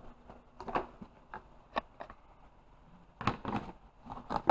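Cardboard box and tray being opened and handled: scattered light taps and rustles, busiest about three seconds in.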